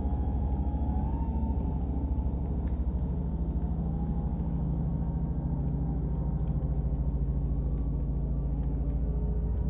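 Live rock band playing loud, heard from far back in the crowd through a phone microphone: a muddy, bass-heavy drone with a held lead note that bends up and down in pitch.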